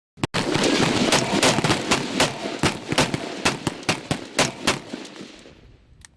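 Rifle fire from a line of shooters, each firing a hammered pair (two quick shots): a ragged string of many overlapping shots with echo. It thins out over about five seconds, with one last shot near the end.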